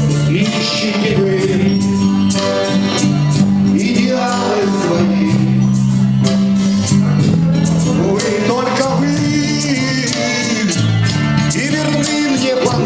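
Music: a gliding melody line carried over a steady accompaniment of sustained bass notes that change about every second.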